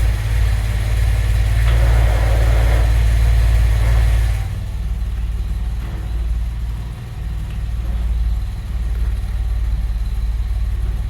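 Carburetted V6 of a Peugeot 504 coupé running at idle with a strange noise that the owner puts down to the four-speed gearbox. A rougher, higher noise over the steady low engine note drops away suddenly about four and a half seconds in, and the engine runs on more quietly.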